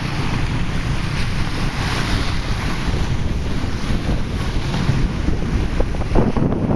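Strong typhoon wind buffeting the microphone in a heavy, steady rumble, over choppy waves washing in, with a hissing surge of water or gust swelling about two seconds in.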